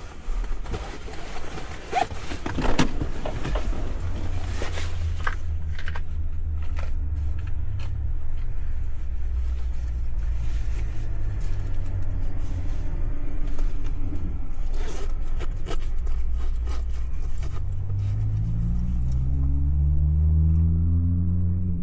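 A motor vehicle engine running with a low rumble, its pitch rising near the end as it speeds up. Knocks and rustling from handling of the microphone come in the first few seconds.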